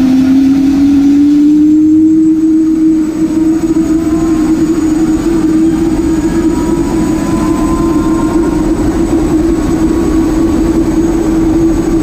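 Helicopter engine and rotor running on the ground before lift-off, a steady hum whose pitch rises over the first two seconds and then holds.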